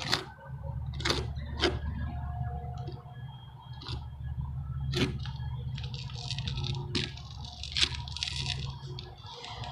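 Putty knife dabbing and scraping thick roof cement onto the roof surface, with several sharp taps and clicks and stretches of scratchy scraping. A steady low hum runs underneath.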